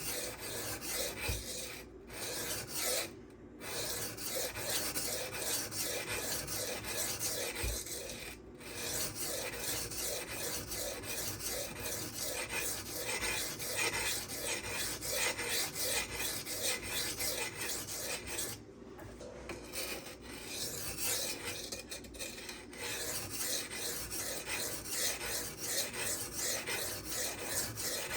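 An M390 steel knife blade scraping back and forth in quick, repeated strokes across a coarse 240-grit silicon carbide whetstone, with a few brief pauses. The edge is being ground toward the apex to raise a burr.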